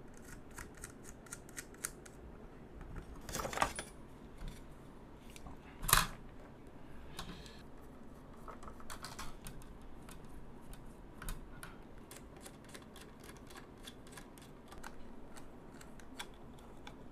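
Faint clicks and scrapes of a small screwdriver driving screws into circuit boards and of the boards being handled, with two louder knocks in the first half.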